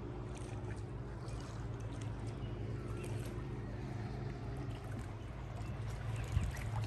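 Outboard motor of a pontoon boat running steadily as it cruises past on the lake, a low steady hum.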